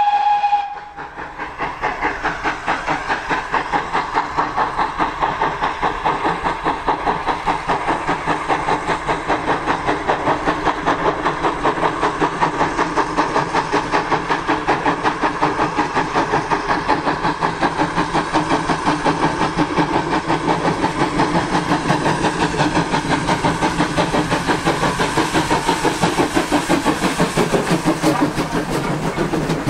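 Two GWR 64xx pannier tank steam locomotives double-heading a passenger train, their exhaust beats fast and even and growing louder as they approach and pass. The last of a steam whistle sounds in the first second.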